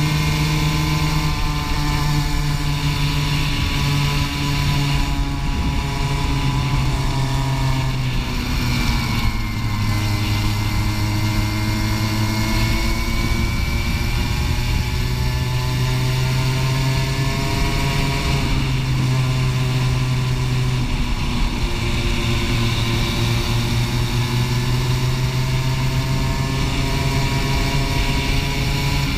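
Racing kart engine heard from onboard at race speed, its pitch falling as the kart slows for corners and climbing again as it accelerates out, twice in a row.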